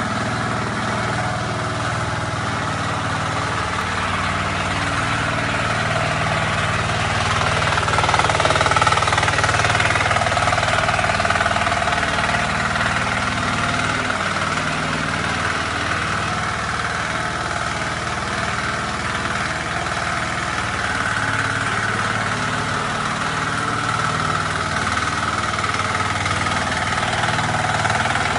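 Small engine of a Gutbrod mini tractor running steadily as it is driven slowly about, a little louder about a third of the way in.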